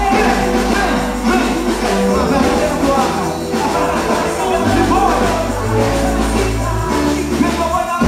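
Loud song with singing over a steady bass line that changes note every second or two, the music for a quadrilha junina dance performance.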